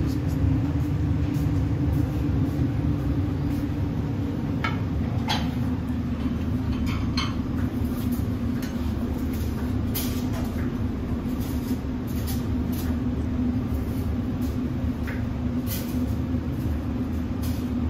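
Steady low drone of kitchen machinery with a constant hum, and scattered light clicks and clinks every few seconds.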